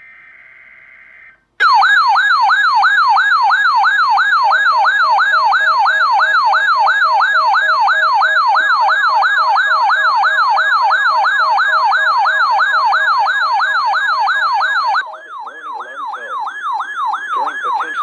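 A short burst of the SAME digital header tones, then a weather alert receiver's electronic siren alarm going off on the third header. It is a loud warbling tone that sweeps up and down about three times a second, and it drops in level about three seconds before the end.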